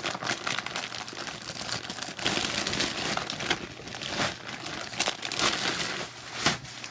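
Plastic candy wrappers and their bag crinkling continuously as a hand rummages through a bag of wrapped candies, with many small sharp crackles.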